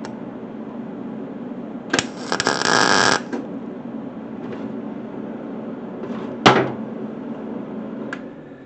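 MIG welder tack-welding a spacer into a steel steering rod. The arc crackles for about a second, then there is one short, sharp pop a few seconds later, over a steady hum.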